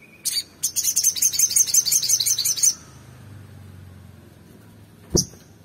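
Olive-backed sunbird singing: two short high notes, then a rapid, high trill of repeated notes for about two seconds, and a single sharp chip near the end.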